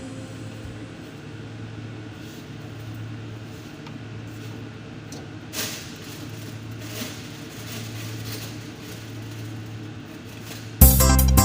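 A steady low hum with a few faint knocks and rustles, cut off by loud electronic music near the end.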